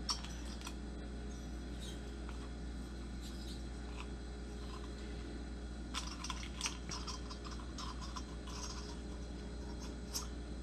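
Light clicks and rustles of a chainsaw kit's parts and packaging being handled, most of them about six to seven seconds in, over a steady low hum.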